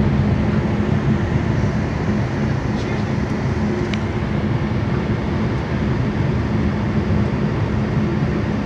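Cabin noise of a BMW 750i cruising at highway speed: steady road and tyre rumble with a constant low engine hum, and a couple of faint ticks.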